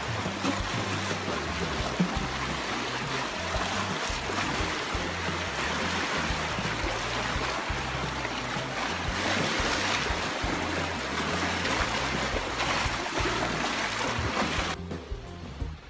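Lake waves washing and splashing against shore rocks and a stone embankment, a steady rushing noise with an irregular low rumble beneath; it drops away abruptly near the end.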